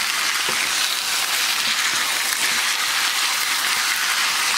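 Raw chicken pieces and onions sizzling in hot oil in a nonstick frying pan, a steady hiss, with a few light knocks from a wooden spatula stirring them.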